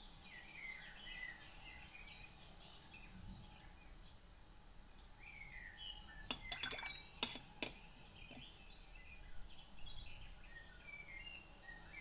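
Birds chirping faintly in the background, with a quick run of light clinks from the painting gear being handled, about six to seven and a half seconds in, the sharpest a little after seven seconds.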